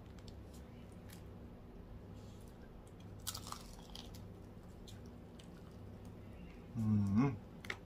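A bite into a crispy piece of broasted chicken: a sharp crunch about three seconds in, then quieter chewing. Near the end there is a short low hum of the voice.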